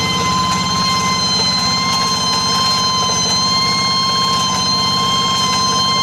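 Rice-field tractor working a paddy, its engine running steadily with a rapid low pulse. Over it rides a steady, high-pitched "nging" whine.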